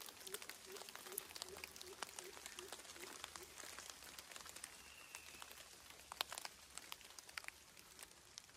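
Water dripping through the forest after rain: faint, scattered ticks and pattering of drops on leaves. For the first three and a half seconds a short, low call repeats about three times a second, and a faint whistle sounds about five seconds in.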